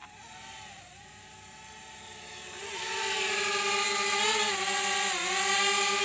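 DJI Spark quadcopter's propellers whining in flight. It grows much louder about two and a half seconds in as the drone comes close, and its pitch dips and recovers as it manoeuvres.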